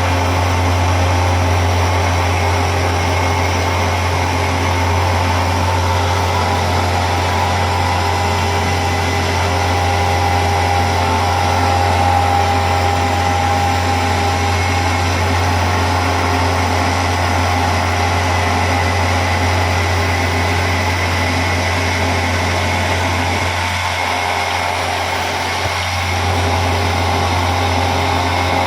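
Retrofitted Pratt & Whitney Tapemate C CNC mill running steadily while milling an aluminium part, a constant low hum with steady machine tones above it.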